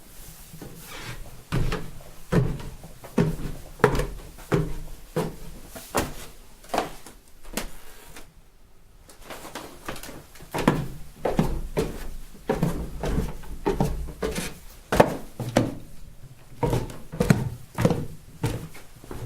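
Footsteps in soft home slippers, a steady series of thuds and scuffs about two a second, pausing briefly partway through.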